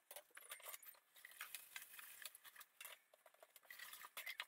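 Faint clinks and light knocks of dishes and cutlery being handled at a kitchen sink.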